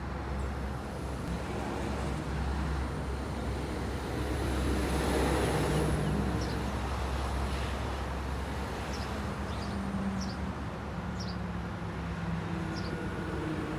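Low, steady vehicle engine rumble that swells about five seconds in and drops away at around eight seconds, with a few short high chirps in the second half.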